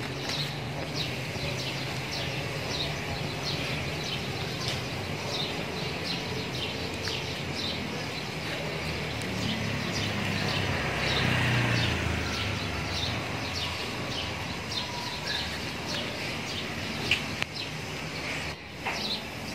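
Small birds chirping over and over, two or three short high chirps a second, over a steady low background hum. A low rumble swells and fades about halfway through, and a few sharp clicks come near the end.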